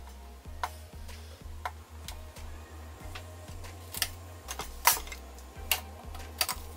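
Sharp, irregular clicks and ticks of fingers picking at and peeling clear packing tape off the metal slot trim of a new Dash toaster, about seven clicks spread over several seconds.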